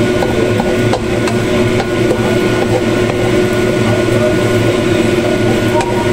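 Beaten eggs frying in oil in a wok, stirred and broken up with a spatula that scrapes and knocks against the pan a few times, over a steady hum.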